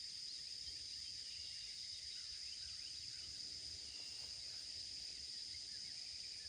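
Faint, steady chorus of insects in a high, even buzz, with a few faint bird chirps over it.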